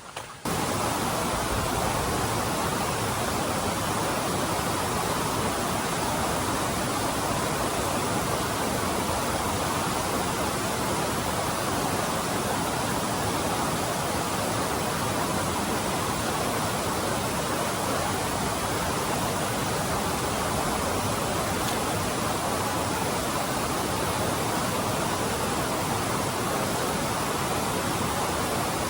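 Waterfall: a steady rush of falling water that starts abruptly about half a second in and holds even.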